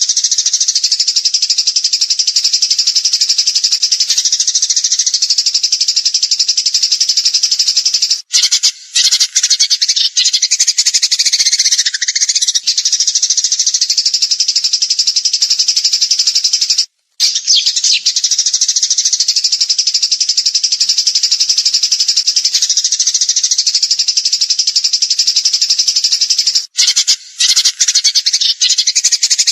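Songbird singing a continuous, dense, high-pitched rapid trill in the rattling 'tembakan' style used in masteran training recordings, broken by brief gaps about 8, 17 and 27 seconds in.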